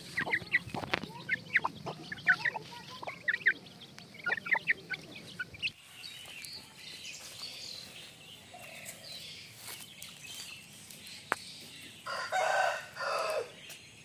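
Two-month-old Aseel chicks peeping and clucking in many short, quick calls. After a cut about halfway through it goes quieter, and near the end come two louder, drawn-out calls from a young bird.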